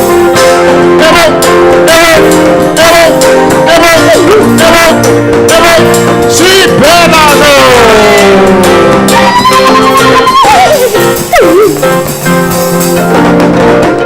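Loud gospel praise music: a voice sings with sliding, drawn-out notes over steady held chords and a beat.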